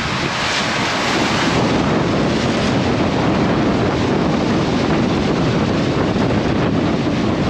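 Strong wind blowing over the microphone, with the rush of waves around a sailboat in rough seas. The noise is loud and steady throughout.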